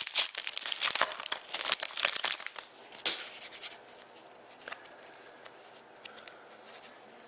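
Hockey card pack wrapper crinkling and tearing as it is opened and handled, densely for the first couple of seconds, with a sharp snap about three seconds in; then only a few faint clicks of cards being handled.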